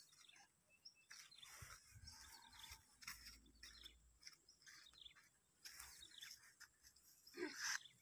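Near silence: faint outdoor ambience with a few faint, short bird chirps, and a slightly louder brief sound near the end.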